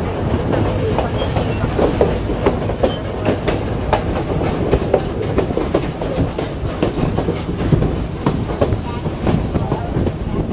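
Passenger train running along the track, heard from on board: a steady rumble with irregular clicks and rattles from the wheels and cars.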